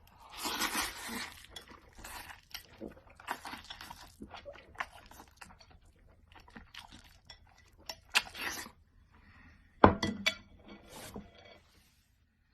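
Irregular handling noises: rustling with light clinks and clicks of objects being moved, over a faint steady low hum.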